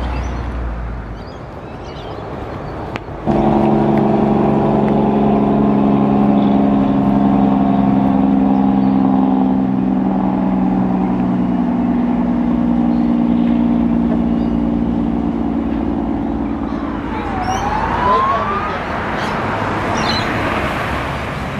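A heavy truck's engine droning at a steady pitch, starting suddenly about three seconds in and slowly fading after about fourteen seconds. Near the end the rushing noise of passing road traffic rises.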